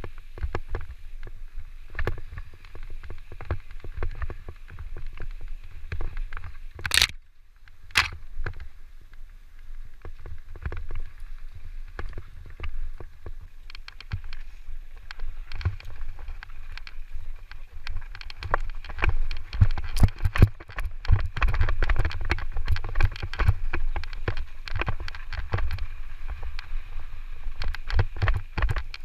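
Electric mountain bike ridden over a rough dirt trail: constant rattling and knocking of the bike and tyres over rocks and ruts, with a low rumble of wind on the microphone. Two brief sharp noises about seven and eight seconds in, and the rattling grows louder and busier in the second half.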